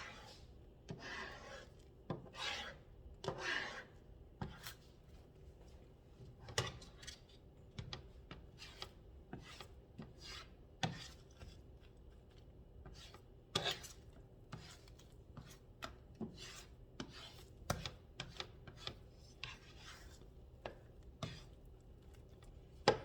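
Spatula scraping and pushing scrambled eggs around a frying pan, pulling the wet egg into the middle as it sets: a few longer scrapes in the first few seconds, then irregular taps and short scrapes.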